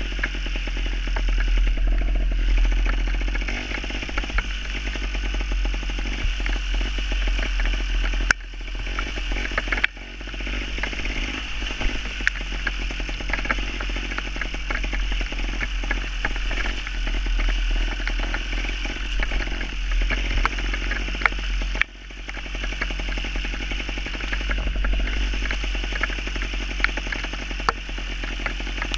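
Gas Gas two-stroke trials motorcycle engine running as the bike is ridden over rough ground, with many short clicks and clatter over the engine and a steady low rumble. The sound breaks off abruptly a few times.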